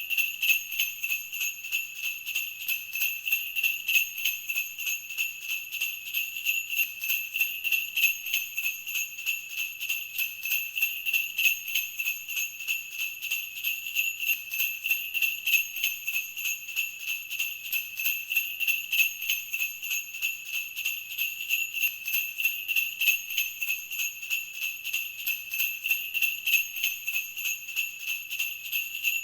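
Sleigh bells ringing, shaken in a steady, even rhythm of repeated jingles.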